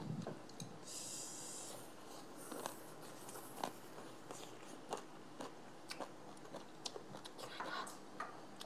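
People chewing and crunching bites of shredded green papaya salad, with scattered small clicks and a brief hiss about a second in.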